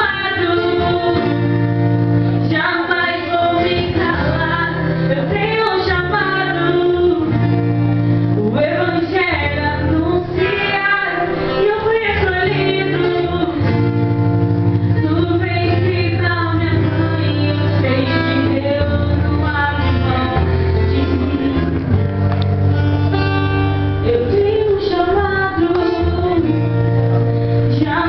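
A song with a female voice singing over guitar and sustained low bass notes, loud and continuous.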